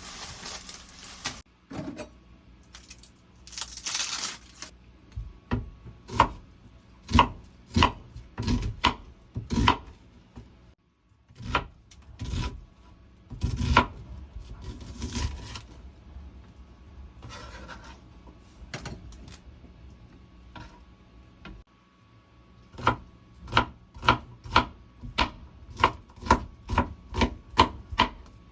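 Knife chopping food on a cutting board. Scattered cuts with pauses give way, about 23 seconds in, to a steady run of two to three chops a second.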